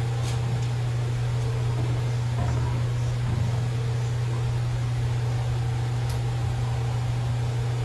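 A steady low hum, unchanging throughout, with fainter steady tones above it.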